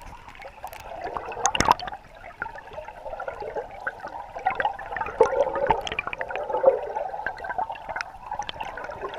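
River water gurgling and bubbling past a camera held underwater, heard muffled through its housing, with scattered sharp clicks.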